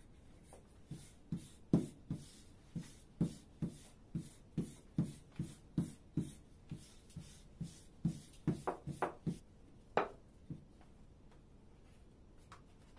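A long, thin wooden rolling pin working a stack of baklava dough sheets on a wooden table, giving a run of soft knocks about two or three a second. There are a few sharper clicks a little past eight seconds, and the knocking stops about ten and a half seconds in.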